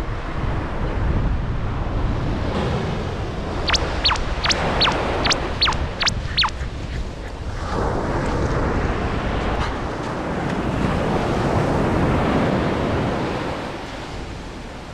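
Surf washing onto a sandy beach, with wind on the microphone; the waves swell louder about halfway through and then ease off. A few seconds in comes a quick run of about eight high whistles, each falling sharply in pitch.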